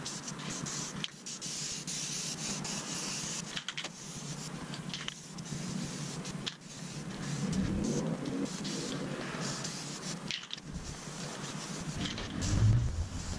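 Aerosol spray paint can hissing in long bursts with short breaks between them, with a low bump near the end.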